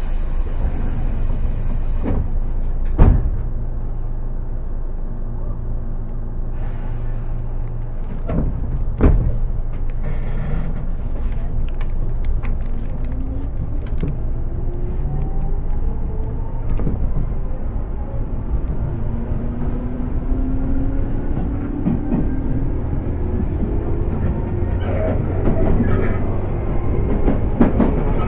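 Inside a Tobu 10030 series electric train's motor car while it runs: a steady rumble and hum, with a short hiss at the start and sharp knocks from the wheels and track about three and nine seconds in, the knock near three seconds the loudest sound. From about halfway the traction motor and gear whine climbs steadily in pitch as the train picks up speed.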